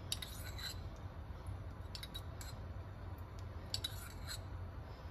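A few faint, short clicks and light clinks while cooking oil is poured from a glass bottle into a stainless steel frying pan, over a low steady hum.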